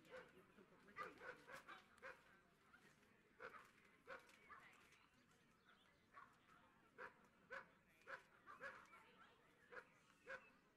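Dogs barking and yipping faintly, many short barks at irregular intervals.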